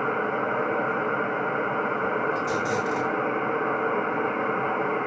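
Receive audio of a Yaesu HF transceiver on the 10-metre band in upper sideband: steady band-noise hiss with no signal, cut off sharply above the sideband filter's passband, played through an external Yaesu FT-101 speaker while the VFO knob is turned. A few faint clicks about two and a half seconds in.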